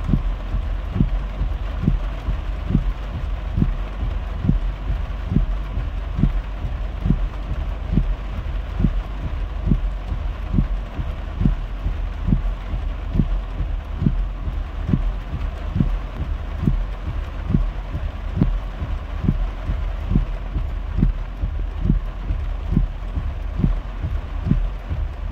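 Heavy rain and floodwater heard from inside a car driving through a flooded street: a steady wash of rain and water over a low rumble, with regular low thumps about once a second.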